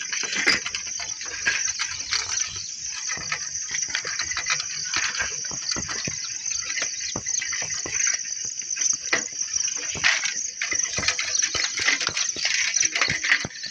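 Crickets chirring steadily in the fields, with frequent knocks and rattles from a bicycle jolting over a brick-paved path.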